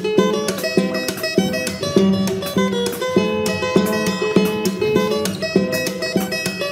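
Background instrumental music with a steady rhythm.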